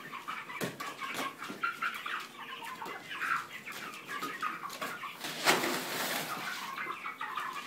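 A flock of chickens clucking and peeping continuously, many short calls overlapping. A brief rustle of the feed sack comes about five and a half seconds in.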